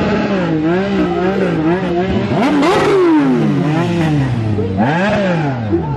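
Sport motorcycle engines being revved: a run of short throttle blips, then two bigger revs that climb and fall away, one a little over two seconds in and one about five seconds in.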